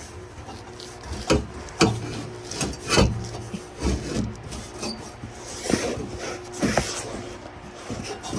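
Steel muffler and exhaust pipe being pulled out from under a truck: irregular metallic knocks and clanks, some briefly ringing, with scraping and rubbing of metal between them.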